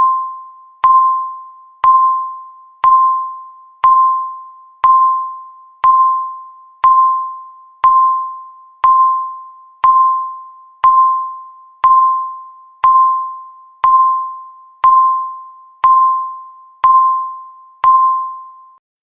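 Countdown timer's electronic beep, a single pitched chime struck once every second and fading quickly, nineteen times in a row, counting off the last seconds to zero.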